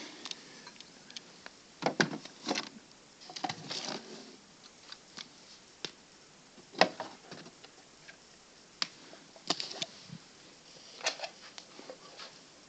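Handling noises: irregular clicks, knocks and short rustles, the loudest about two seconds in and again near seven seconds. No alarm is sounding.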